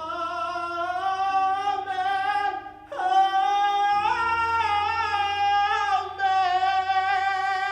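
A high soprano voice singing long held notes with vibrato, in several phrases, over a faint low sustained accompaniment.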